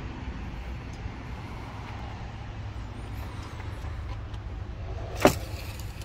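A steady low rumble throughout, with one sharp click about five seconds in as the engine oil dipstick is pulled out of its tube.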